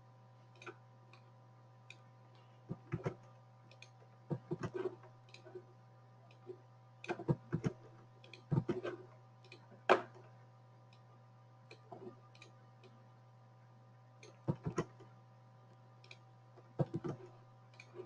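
Computer mouse clicks and a few keyboard keystrokes, short sharp clicks, some in quick pairs, coming at irregular intervals over a faint steady electrical hum.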